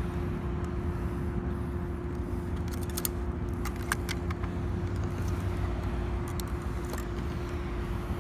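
Light clicks and small metallic rattles as a digital hanging scale with a coiled lanyard and hook is handled, a few of them between about three and four seconds in and another couple near the end. Under them runs a steady low rumble with a faint constant hum.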